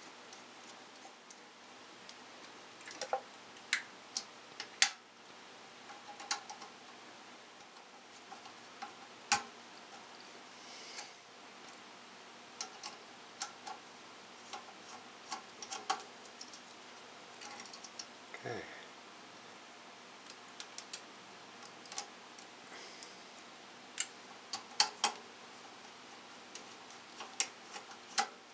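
Irregular light clicks and ticks of a screwdriver, terminal screws and wire on a water pump pressure switch as a wire is fastened, over a faint steady hum.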